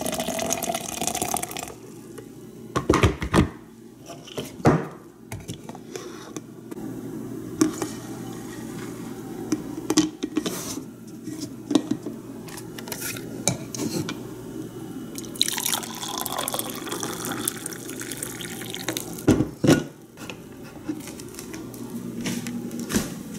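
Hot water pouring into a glass French press, rising in pitch as it fills and stopping a couple of seconds in, followed by scattered clicks and knocks of the press being handled. About fifteen seconds in, coffee is poured from the press into a ceramic mug for a few seconds, again rising in pitch as the mug fills.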